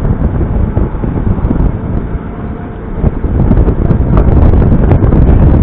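Smart Roadster's small turbocharged three-cylinder engine and road noise under heavy wind buffeting on the microphone while driving. It grows louder about three seconds in.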